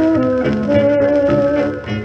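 Dance band playing from a 78 rpm record, the melody moving through long held notes over the accompaniment, with the dull top of an old disc recording.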